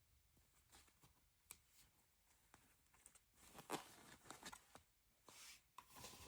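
Near silence, with faint rustling and a few light taps from a box and its packaging being handled.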